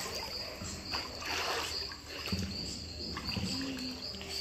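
Pool water sloshing and splashing gently as a girl moves through it, handling wet clothes. Behind it an insect chirps steadily, about twice a second.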